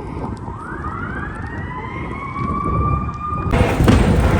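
An emergency vehicle siren winding up, rising in pitch over about two seconds and then holding steady. About three and a half seconds in, a sudden loud rush of noise covers it.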